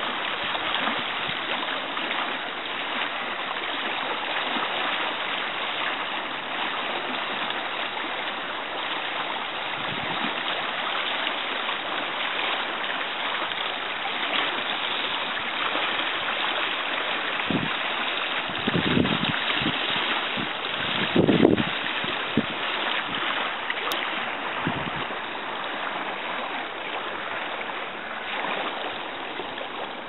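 Fast, turbulent river water rushing steadily, with standing waves breaking. A few short low bumps come about two-thirds of the way in, the loudest near the end of that stretch.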